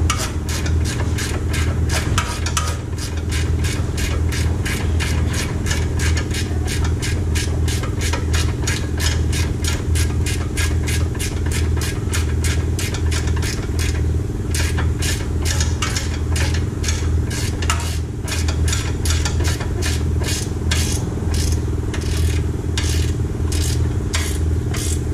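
Hand ratchet clicking in a long run of quick strokes, about four clicks a second, as it tightens the nuts of a new lower ball joint on a Hyundai Tucson's front suspension, over a steady low hum.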